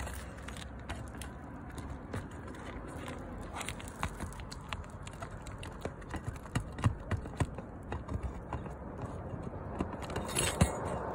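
Flat pry bar being worked under asphalt roof shingles to lift them around a pipe jack, giving irregular clicks and knocks that come thicker and louder in the second half.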